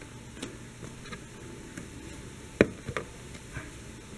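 Plastic fog-light grille being pressed into the front bumper by hand, its clips clicking into place: a few light clicks and one sharp snap about two and a half seconds in, with a second click just after.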